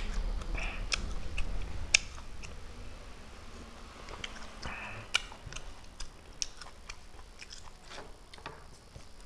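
Close-up mouth sounds of a person sipping broth from a bowl and eating: two short slurps, about half a second in and near five seconds, among many small wet lip-smacking clicks.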